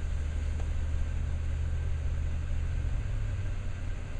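Car engine running with a low, steady rumble, heard from inside the cabin as the car moves slowly.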